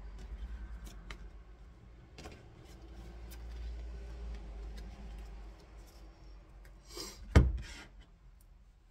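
Tarot cards being dealt from a hand-held deck onto a wooden table: soft sliding and light taps of the cards. Near the end there is a sharp thump as the deck is set down on a stack of decks.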